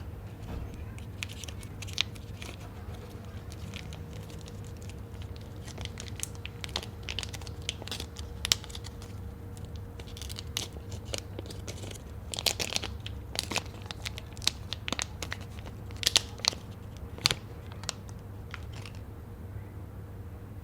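Plastic snack packaging crinkling and being torn open: a long string of sharp crackles, bunched thickest about twelve and sixteen seconds in, over a steady low hum.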